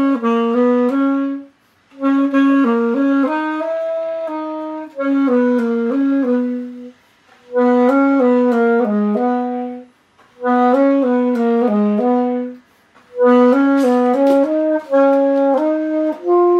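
Saxophone playing a slow melody, solo, in about six short phrases with brief pauses for breath between them.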